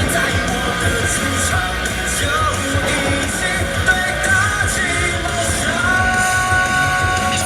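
Pop-rock song playing, a voice singing over a steady beat.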